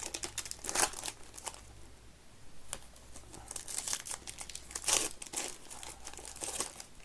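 Trading card pack wrappers being torn open and crinkled by hand, in irregular short rustles.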